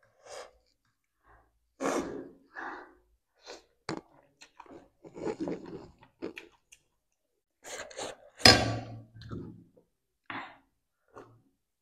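Close-miked eating of spicy instant noodles: slurping strands in and chewing them, in short separate bursts with the loudest about eight and a half seconds in.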